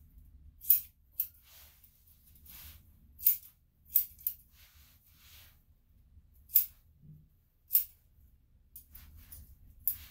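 Grooming scissors snipping through a dog's coat: a string of sharp metallic snips at uneven intervals, with a soft rustle of hair between some of them.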